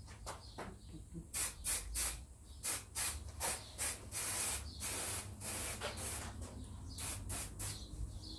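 Aerosol can of spray adhesive spraying onto a plywood panel. It gives a series of short hisses, starting about a second and a half in, with a longer spray about four seconds in.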